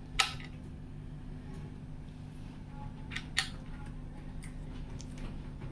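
A few sharp clicks as PC case parts are handled: one about a quarter second in, then two close together a little after three seconds. A steady low hum runs underneath.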